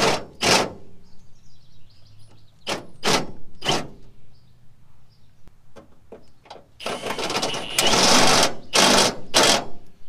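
Cordless drill with a step drill bit cutting through the sheet-steel pickup bed, enlarging 1/8-inch pilot holes to 9/16 inch. Several short bursts in the first few seconds, then a loud, steady run of about three seconds near the end.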